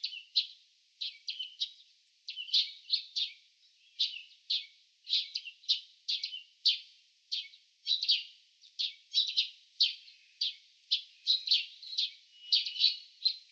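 Birds chirping: a steady run of short, high chirps, a few a second, without a break.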